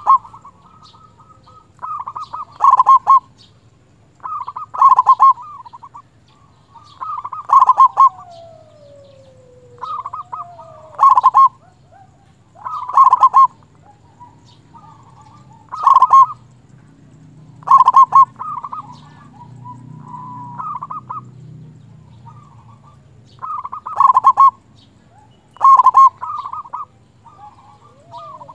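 Zebra dove (perkutut) singing: loud, repeated cooing phrases of quick staccato notes, one every two to three seconds.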